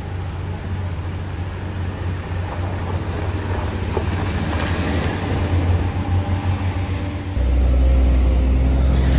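Engine of a Mitsubishi Colt L300 pickup running as a steady low drone while stopped on a steep climb it cannot make. A car passes close by about halfway through, and about seven seconds in the drone jumps louder and deeper.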